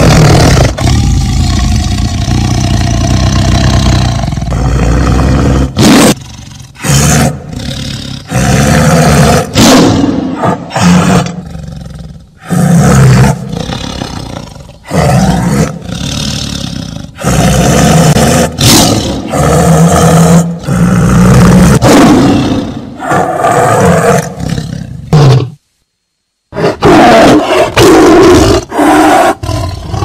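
Tiger roaring and growling again and again, a run of loud, rough calls separated by short pauses. The sound cuts out completely for about a second near the end, then the roaring resumes.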